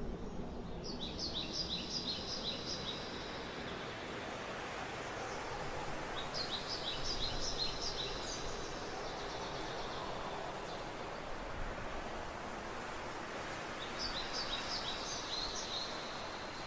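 Forest ambience: a bird gives a quick run of high, rapid chirps three times, a few seconds apart, over a steady rushing background.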